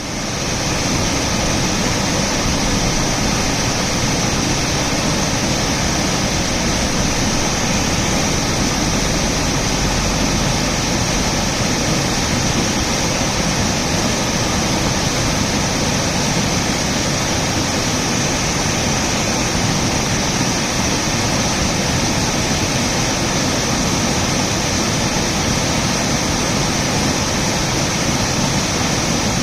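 Small waterfall rushing: a loud, steady roar of falling and flowing water.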